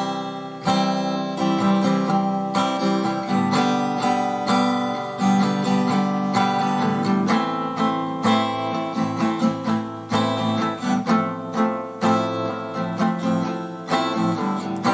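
Acoustic guitar playing the instrumental intro of a song, chords plucked and strummed at a steady pace.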